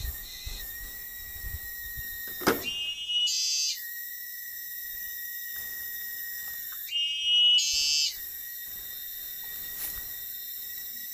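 Steady high-pitched drone of forest insects, broken twice, about four seconds apart, by a loud whistle-like call lasting about a second, with a single sharp knock just before the first call.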